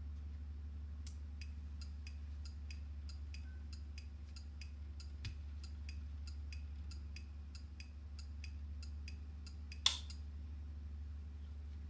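Turn-signal flasher relay clicking rapidly and evenly, about three clicks a second, then stopping. A single louder click follows near the end, over a steady low hum.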